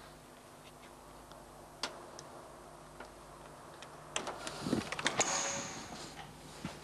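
Scattered faint clicks over a low steady hum, then about four seconds in a cluster of clicks and clatter with a short high beep as a door is unlocked and opened.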